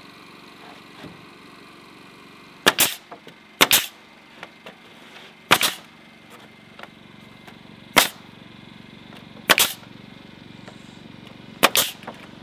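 Pneumatic nail gun firing nails into wooden rafters: six sharp shots, spaced irregularly a second or two apart.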